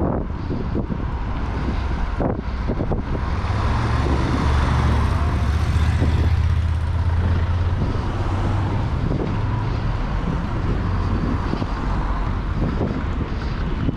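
Wind rushing over the microphone of a moving rider, over street traffic with car and truck engines. A low engine rumble swells from about four to eight seconds in, then eases.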